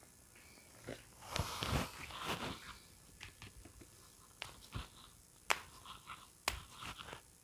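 Close handling noises during a hands-on chiropractic treatment: cloth rustling and body movement on the treatment couch, loudest about a second and a half in, then several short sharp clicks in the second half.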